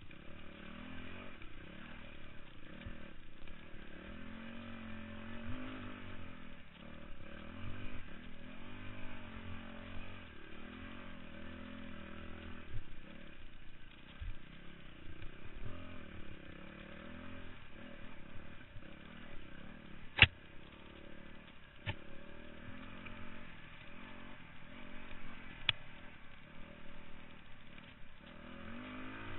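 Dirt bike engine running hard on a trail ride, its pitch rising and falling again and again as the rider revs and backs off through the turns. A few sharp knocks stand out, the loudest about twenty seconds in and others near 22 and 26 seconds.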